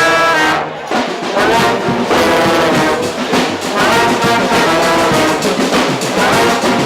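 A marching band's tubas and trombones playing a repeating bass line together, with drums keeping a funk groove.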